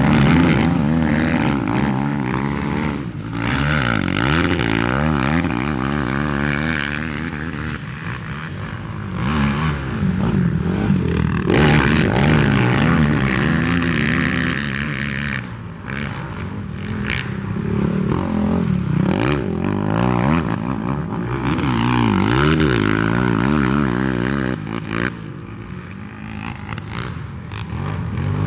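Several racing ATV engines revving, their pitch rising and falling again and again as the throttles open and close, more than one engine at a time.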